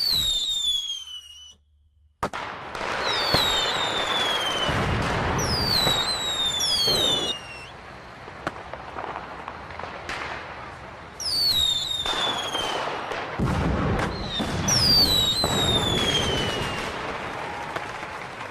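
Fireworks sound effect: a sharp bang about two seconds in after a brief silence, then dense crackling bursts, with whistles that fall in pitch at intervals throughout.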